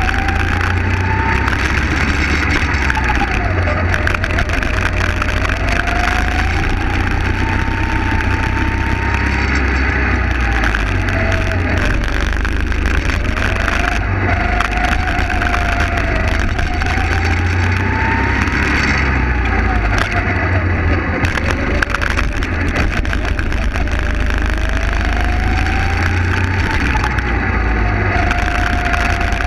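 Racing kart engine recorded onboard, revving up and down through a lap: its note climbs on the straights and drops sharply as the driver brakes for corners, four or five times, over steady rumble and rushing air.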